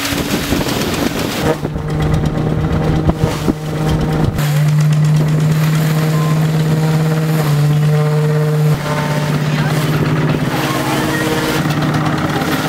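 Belt-driven threshing machine running with a steady, loud hum while sheaves of wheat are fed into it, with rustling and clatter of straw. The hum grows louder about four seconds in and eases slightly near the end.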